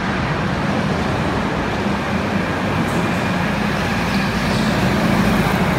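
Racing karts running laps of an indoor track, a continuous engine drone that swells slightly about five seconds in.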